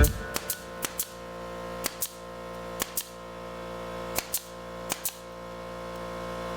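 Pneumatic brad nailer firing small air nails into cedar, sharp shots mostly in quick pairs about once a second, over a faint steady hum.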